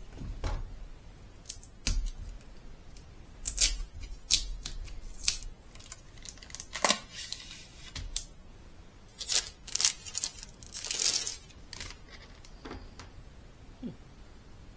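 Unpacking a parcel by hand: irregular clicks and scrapes of a utility knife cutting the tape on a packing tube, and rustling of the plastic bag inside it.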